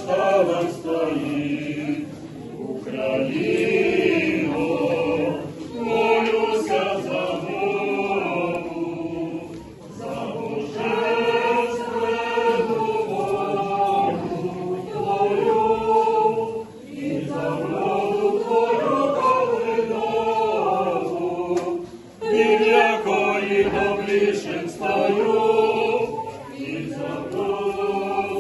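Church choir singing Orthodox liturgical chant a cappella, in long sustained phrases with brief pauses between them.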